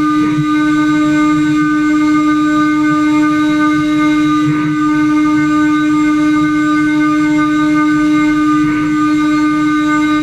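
CNC router spindle running with a loud, steady whine while cutting, with a faint brief swell about every four seconds.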